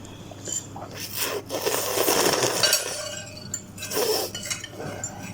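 Cutlery scraping and clinking against a bowl of instant noodles, with one long scrape of about two seconds in the middle and short clinks around it.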